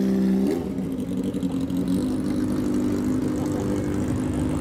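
Kawasaki motorcycle's exhaust holding a strong note as it rides off, dropping away about half a second in. It gives way to a steady engine drone as a car rolls past.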